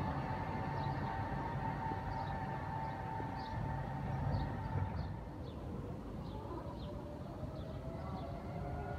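A Zurich low-floor articulated tram's electric drive whines steadily over the low rumble of its wheels on the rails, fading out about halfway through as it moves off. Short high chirps recur throughout, and near the end the rising whine of another approaching tram begins.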